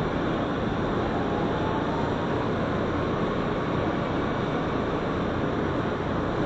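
Interior running noise of an R160 Siemens subway car under way: a steady rumble of wheels on rail with a faint whine.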